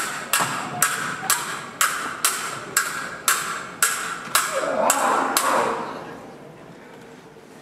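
Stage swords clashing blade on blade in a steady run of sharp clicks, about two a second, that stops about five and a half seconds in. An audience's voices swell briefly near the last strikes.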